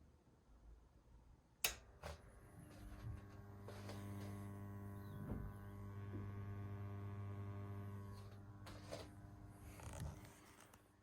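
A sharp click as the stereo trigger cable is connected, then a low mains hum from the audio system that swells over a couple of seconds, holds steady and fades away, with another click near the end.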